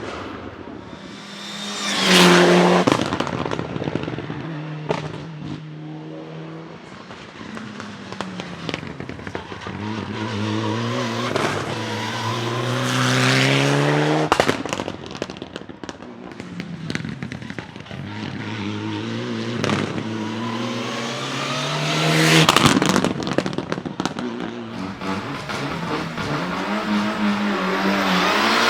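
Mitsubishi Lancer Evolution IX Group N rally cars, turbocharged four-cylinders, accelerating hard up a hillclimb and revving up through the gears. Sharp bangs and pops from the anti-lag misfiring system come between shifts and on lift-off. It is loudest three times, as cars pass about 2, 13 and 22 seconds in.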